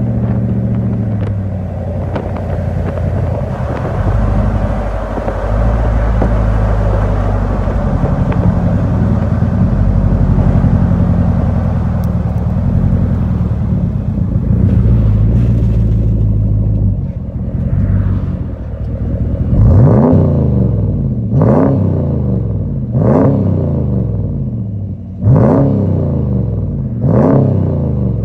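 Dodge Ram 1500 V8 heard through a 3-inch cat-back exhaust with an X-pipe and twin round-body mufflers, running with a steady low rumble. About twenty seconds in it gives a string of quick throttle blips, each rising and falling in pitch, roughly one every one and a half to two seconds.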